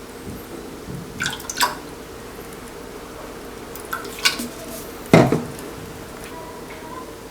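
Kitchen utensils clinking against a bowl and the pouring and dripping of seasoning liquids as a braising sauce is mixed. There are a few sharp clinks, the loudest about five seconds in, over a faint steady hum.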